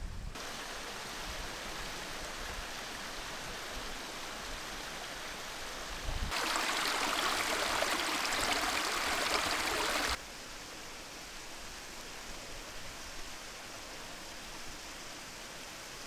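Mountain stream rushing over rocks, a steady even wash of water. It gets abruptly louder about six seconds in and drops back about four seconds later.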